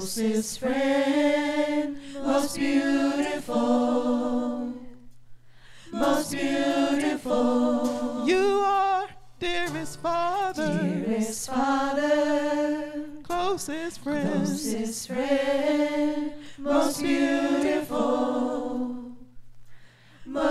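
A praise team of several women singing a slow worship song into microphones, unaccompanied, in long held phrases separated by brief pauses. A steady low hum runs underneath.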